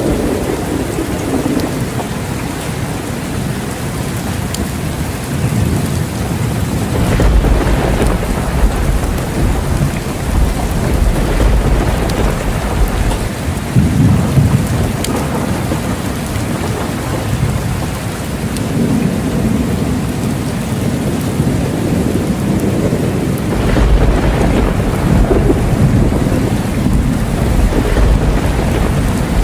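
Steady heavy rain with rolling thunder: two long deep rumbles, one starting about a quarter of the way in and another near the end, each lasting several seconds.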